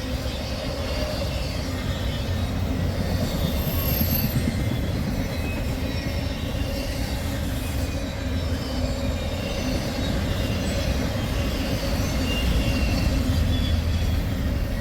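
Intermodal freight train rolling past: a steady rumble of steel wheels on the rails, with faint high wheel squeals here and there.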